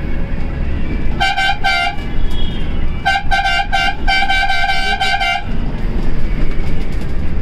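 Volvo intercity bus horn sounding three quick toots, then after a short pause a longer string of toots that run together into a held blast. A steady low rumble of engine and road noise inside the cab runs under it.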